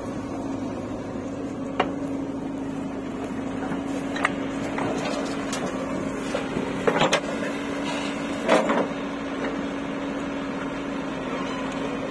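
JCB 3DX backhoe loader's diesel engine running steadily, with a few sharp knocks, and twice in the second half a louder clatter of soil and clods dumped from the bucket into a steel tractor trolley.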